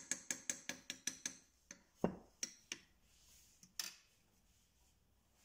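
A spatula tapping against the rim of a cooking pot: a quick run of sharp taps, about five a second, then a few scattered knocks that stop about four seconds in.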